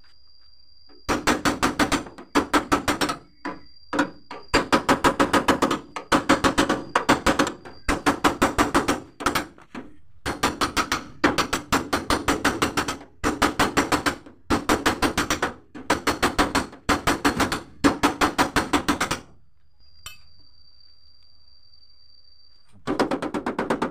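Hammer tapping out a dent in the steel side door of a Mitsubishi L300 van through a protective plastic sheet, so the paint is left undamaged. The taps come in rapid runs about a second long with short breaks, stop about 19 seconds in, and start again near the end.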